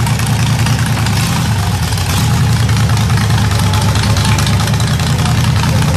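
Rock buggy engine idling steadily, with no revving.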